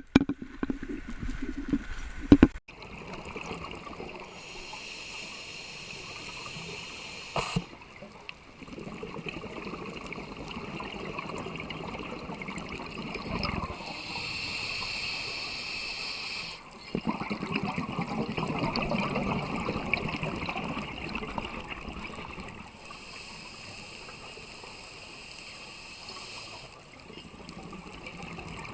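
Scuba diver breathing through a regulator underwater, about three slow breaths: a hiss on each inhalation, then a longer bubbling gurgle as the exhaled air escapes. There are a few sharp knocks in the first couple of seconds.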